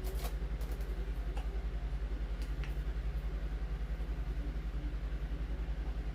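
Steady low machine hum that pulses evenly several times a second, with a few light clicks in the first few seconds, like small plastic wheel parts and screws being handled.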